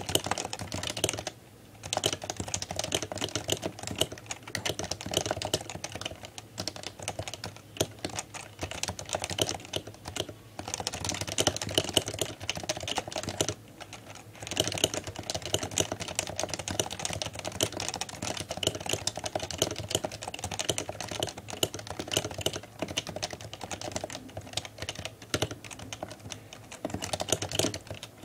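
Fast, continuous typing on a Happy Hacking Keyboard Professional 2 with Topre capacitive key switches, a dense run of key strokes broken by a few short pauses.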